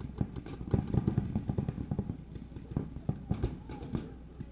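Paintball markers firing in rapid strings from several players, a dense stream of sharp pops that thins to scattered shots after about two seconds.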